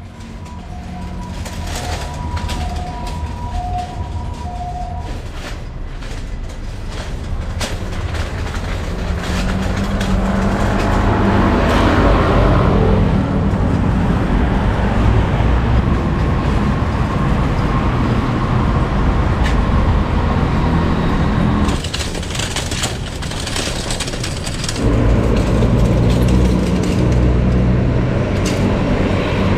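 Steady low rumble of vehicles or traffic, with a two-tone alternating beep in the first few seconds. The rumble grows louder about ten seconds in.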